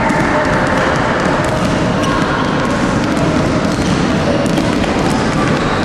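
Basketballs bouncing on a wooden gym floor amid a steady din of children's voices in a large sports hall.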